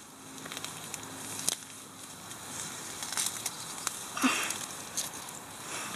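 Leafy garden plants and flower stems rustling and crackling as flowers are picked by hand, with scattered small clicks and a louder crackle about four seconds in.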